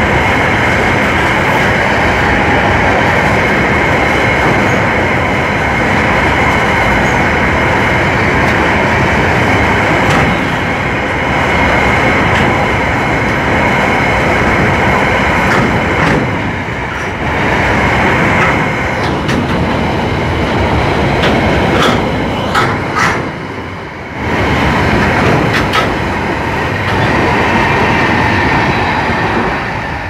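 A long string of empty steel coal gondola wagons rolls past close by, their wheels clattering and rumbling on the rails in a loud, continuous noise. A few short sharp metallic sounds stand out about three quarters of the way through.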